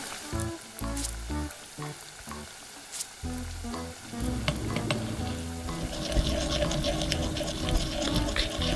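Milk heating in a tiny clay pot, sizzling, stirred with a small spoon as chili powder goes in; the sizzling and stirring grow louder about halfway through.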